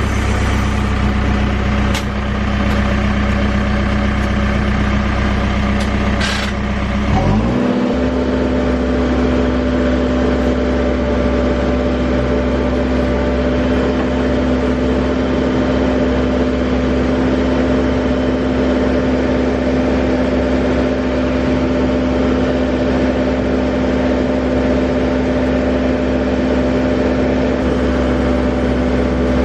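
Case 580 Super N backhoe loader's diesel engine running steadily, then quickly revving up about seven seconds in and holding at the higher engine speed. Two short knocks come early on.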